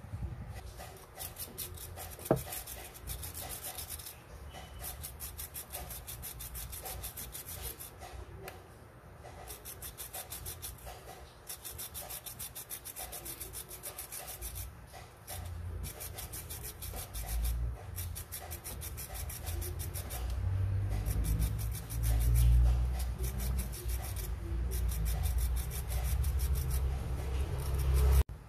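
A metal coin scrubbed back and forth across a brass wire brush: fast, even scratching strokes in runs with short pauses, and a low rumble in the second half.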